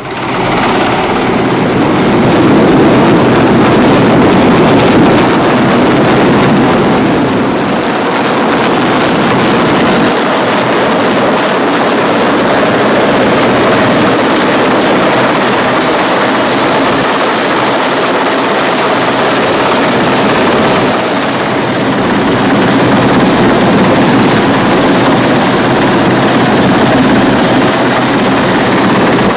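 RAF Westland Sea King search-and-rescue helicopter hovering close overhead during a winch lift: loud, steady rotor and turbine engine noise.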